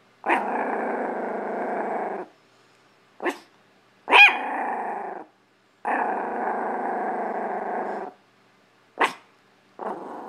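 Chihuahua giving long warning growls of about two seconds each, broken by short sharp barks; the loudest bark, about four seconds in, runs straight into another growl.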